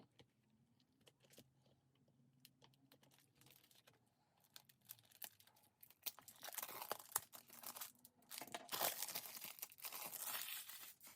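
Plastic shrink-wrap being torn and peeled off a CD jewel case: a few faint clicks and rustles at first, then dense crinkling and tearing from about halfway on.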